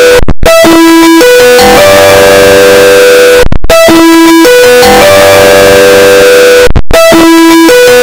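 A BlackBerry phone ringtone boosted until it clips into harsh distortion. Its short melody, a few quick notes then long held tones, loops about every three seconds with a brief cut-out between repeats.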